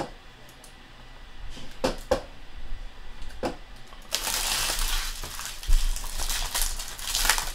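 Foil trading-card pack wrapper crinkling as it is handled and the cards are pulled out: a few sharp crackles at first, then a dense run of crinkling from about four seconds in.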